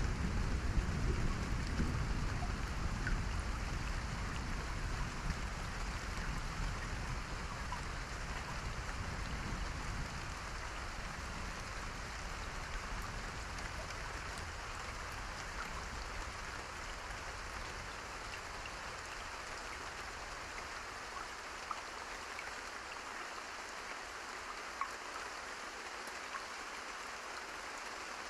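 Steady rain falling, with the low rumble of thunder fading away over the first several seconds.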